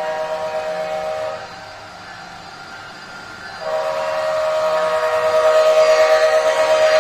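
Sound decoder of an HO-scale Amtrak Charger ALC-42 model blowing a multi-note diesel locomotive horn: one blast that stops about a second and a half in, then a second blast starting about three and a half seconds in that grows louder, over a faint simulated diesel engine running underneath.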